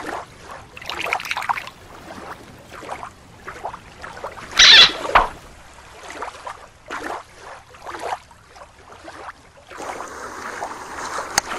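Shallow water sloshing and splashing, uneven and irregular, with one louder splash about five seconds in and a steadier rush of water near the end.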